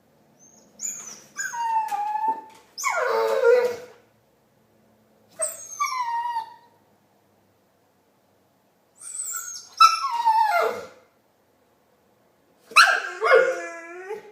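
Pit bull making Chewbacca-like vocal noises: five drawn-out calls whose pitch slides downward, separated by short pauses.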